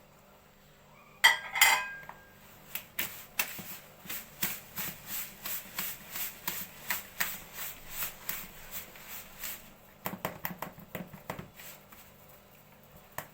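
Kitchen utensil clinking against a mixing bowl: a loud ringing clank about a second in, then a long run of regular strokes about three a second, then a few looser clatters near the end.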